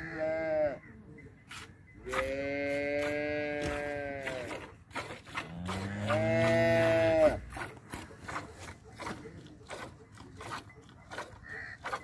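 Cattle mooing three times: first a short moo, then two long ones, the last the loudest. Under the calls, milk squirts into a steel bucket during hand milking, a short splash a few times a second.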